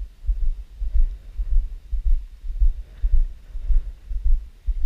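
Footsteps of someone walking up a grass path, heard as low dull thumps about twice a second through the carried GoPro action camera.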